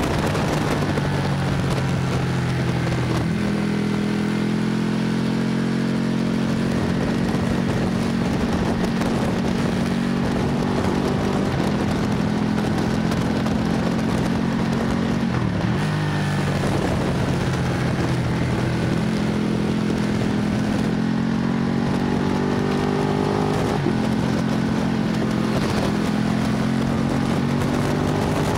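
Motorcycle engine at full track speed, its pitch rising under acceleration and stepping abruptly at gear changes several times, over a steady rush of wind.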